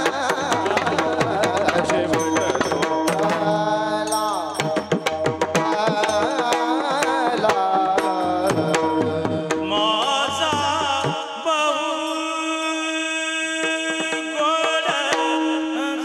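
Warkari kirtan music: a mridang (double-headed barrel drum) played in fast strokes with hand cymbals (tal) clashing over a steady drone, with male voices singing a melodic line. The deep drum strokes stop about eleven seconds in, leaving the singing, drone and cymbals.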